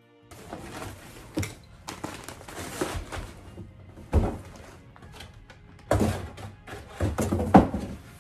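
Crumpled kraft packing paper crinkling and a cardboard box being handled, with several dull thunks as the box is lifted, tipped and set down.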